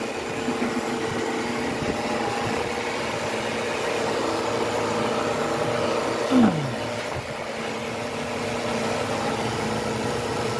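Steady machine hum with a constant pitch and overtones, like a running motor. About six and a half seconds in, a short falling tone cuts through it.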